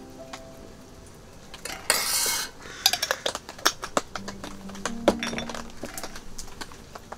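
Metal spoon clinking against stainless-steel camping cups while a sauce is spooned and mixed: a quick run of light clinks and taps, with a short rushing burst about two seconds in.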